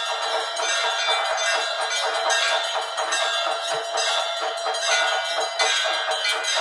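Temple bells rung rapidly and without pause, a dense metallic clangour of many overlapping ringing tones, the bell-ringing that accompanies an arati.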